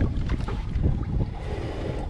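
Strong wind buffeting the microphone: a steady low rumble, with a few light knocks.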